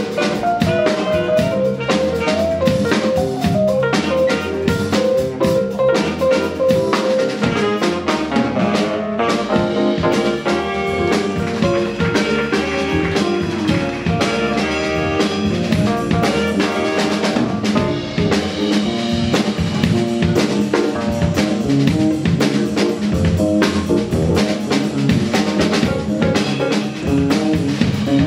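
Small jazz band playing live: saxophones carrying a melodic line over electric bass guitar and a busy drum kit.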